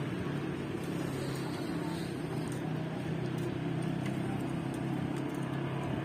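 Steady low hum of a motor vehicle engine running at an even pitch, with street noise.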